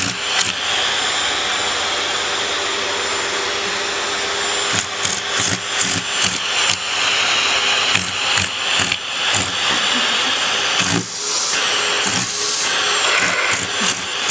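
Vacuum cleaner running with a steady hiss and whine. From about five seconds in, it is broken by a run of short knocks and changes in level.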